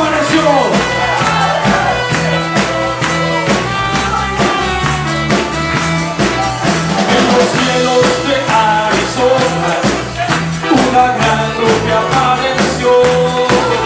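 Upbeat church worship music from a band with a steady bass and drum beat, with singing over it.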